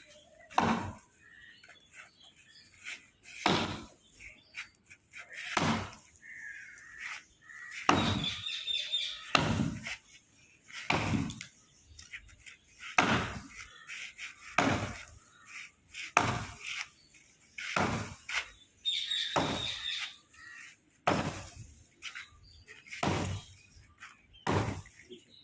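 A steady series of heavy blows, about one every two seconds, fourteen in all. A bird chirps twice among them.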